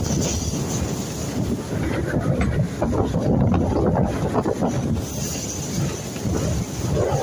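Wind buffeting the microphone and the rush of water from a boat under way, a steady noisy rumble.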